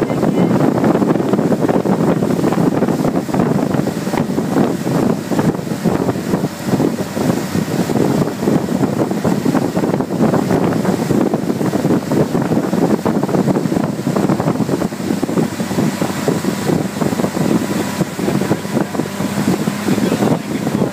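Outboard motor running steadily at towing speed, under the rush of the boat's wake and heavy wind buffeting on the microphone.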